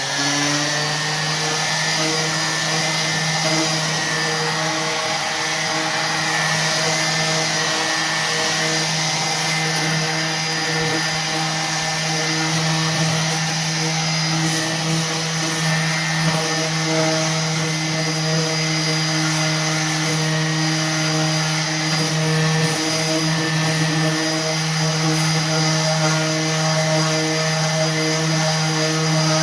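Electric random orbital sander running steadily with a constant motor hum, sanding lightly around the painted edges of a wooden chest of drawers to distress the paint.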